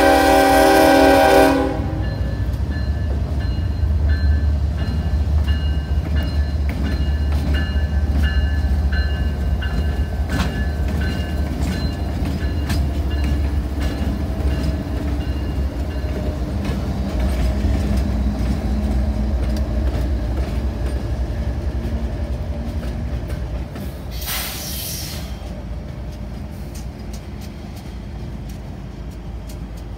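CSX freight diesel locomotives blowing the horn, which cuts off about a second and a half in, then the engines' deep rumble as they pass close by. A crossing bell rings faintly until about halfway through. A short hiss comes near the end, and the rumble fades as the locomotives move away.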